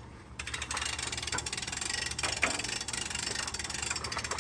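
Hand-cranked auto-brake winch on a boat lift crane being wound in under load, its ratchet clicking rapidly and steadily after a brief pause at the start.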